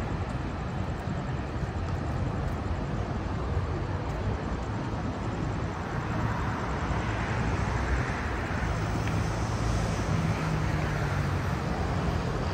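Road traffic: a steady rumble of passing vehicles, with a louder low engine hum in the second half.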